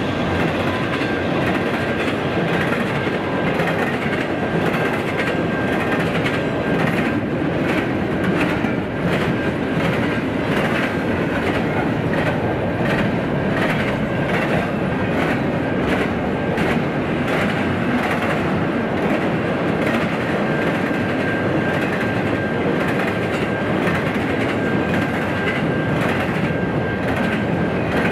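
Double-stack intermodal freight train rolling past: a steady rumble of steel wheels on rail with a continual clickety-clack of wheelsets over rail joints. A thin steady high whine runs through much of it.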